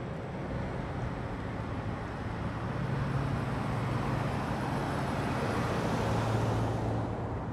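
A truck driving past on the road: engine hum and tyre noise build over a few seconds, then ease off as it goes by.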